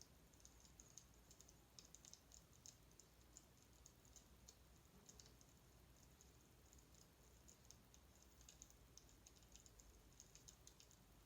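Near silence with faint, rapid, irregular light clicking.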